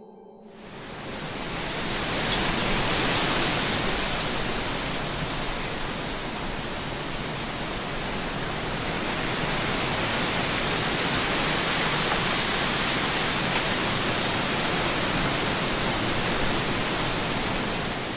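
Sea surf washing on a rocky shore, an even rushing noise that fades in over the first couple of seconds and then swells and eases slowly.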